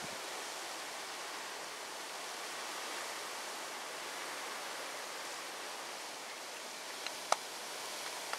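Steady, even outdoor background hiss with no distinct source, broken by a single sharp click near the end.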